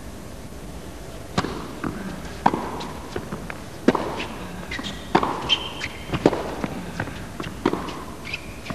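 Tennis rally: the ball is struck back and forth with rackets, sharp hits about every second and a quarter, each ringing briefly in the hall. Short high squeaks of shoes on the court come between some of the hits.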